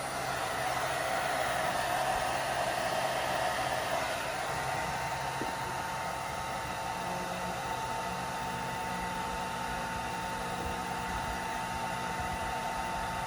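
Electric dryer running on its medium, warm setting: a steady blowing of air that comes on at the start. About four seconds in it eases slightly and a steady whine appears.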